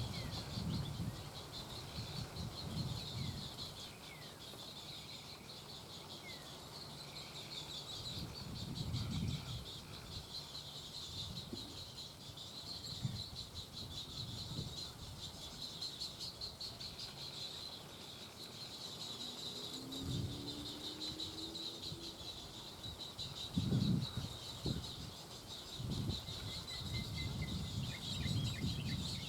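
Little Blue Heron chicks' wings flapping at the nest, heard as irregular soft thumps, over a steady high pulsing buzz. A short low call comes about twenty seconds in, and quick high chirps near the end.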